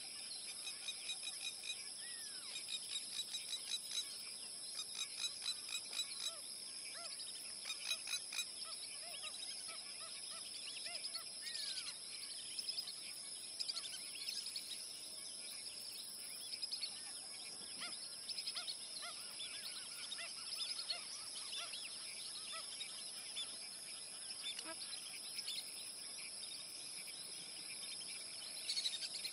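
Outdoor nature soundscape: many birds chirping and calling, with quick repeated notes and a few falling whistles, over a steady high-pitched insect buzz.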